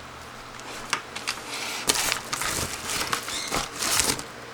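Packaging rustling and crinkling in hand, with a few small clicks. It is faint at first and grows busier and louder from about two seconds in.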